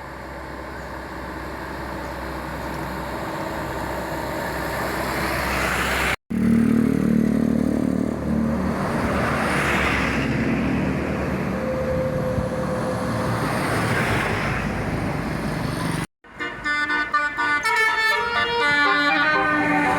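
Indonesian bus 'telolet' horns, multi-tone musical air horns, sounding over traffic noise as buses pass. Near the end the horn plays a fast run of short, changing notes.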